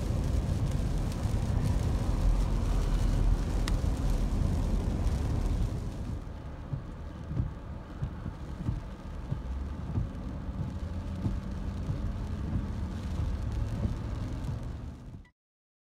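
Road and rain noise inside a car on a wet highway: tyres on wet pavement and a low rumble while moving. About six seconds in the car slows into stopped traffic and the noise drops to a quieter rain-and-idle background with occasional soft thumps. The sound cuts off suddenly near the end.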